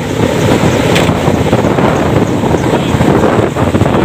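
Strong wind blowing across the microphone: a loud, steady rush with heavy low buffeting.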